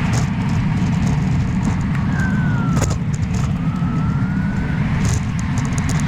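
Steady low rumble of a moving road vehicle, with two faint, brief high squeals in the middle.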